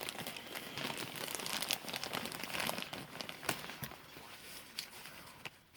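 Packaging crinkling and rustling as a die-cast model car is unwrapped by hand, with sharp crackles and a few clicks, one sharper click about three and a half seconds in.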